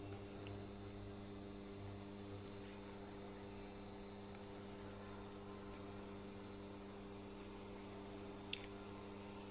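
Steady electrical hum from an Electrolux EIV63440BS induction hob running at full power under a pot of water, with a faint tick about eight and a half seconds in.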